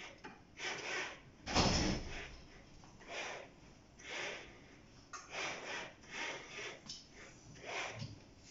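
The cart of an inverted-pendulum rig sliding back and forth on its linear rail in short bursts about once a second as the controller keeps the rod balanced under the added load of a glass, with one louder jolt about one and a half seconds in.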